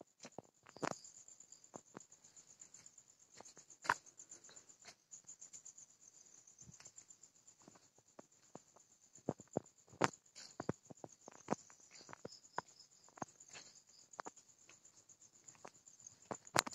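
Crickets chirping in a steady high, fast-pulsing trill, with many irregular sharp clicks and taps over it.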